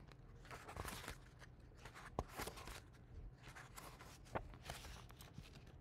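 Faint rustling of a paper picture book being opened and its pages turned, with a couple of soft clicks from the handling.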